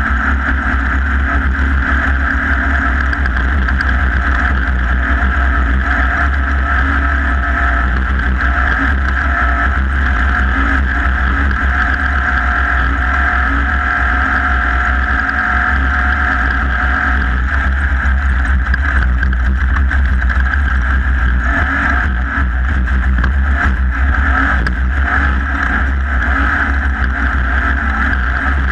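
Off-road race vehicle's engine running hard and steadily at speed, heard onboard, with heavy wind rumble on the microphone.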